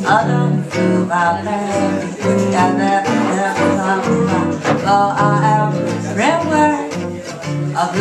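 Live jazz duo: a guitar played through a small amplifier, chording steadily, under a wordless sung melody line that slides between notes.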